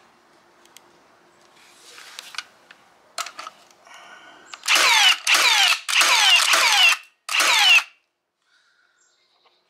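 Milwaukee M18 cordless 21-degree framing nailer driving a quick run of about five nails into a wooden block. Each shot is a loud burst of motor whir that falls in pitch, coming in rapid succession about halfway through, after some lighter clicks and handling.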